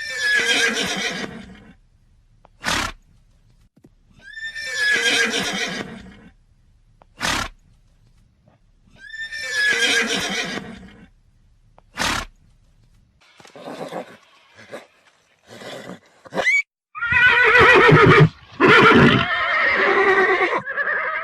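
Horse neighing: the same whinny repeats three times, about four and a half seconds apart, each followed by a short, sharp sound. After some quieter short sounds, two longer, louder whinnies come near the end.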